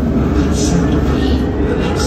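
Dubai Tram car in motion, heard from inside the carriage: a steady low rumble of wheels and running gear with a noisy hiss above it.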